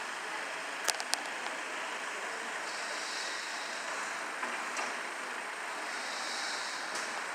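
Compact utility tractor running as it pulls a wagon slowly past, heard as a steady noise without a clear engine note. Two short sharp clicks come about a second in.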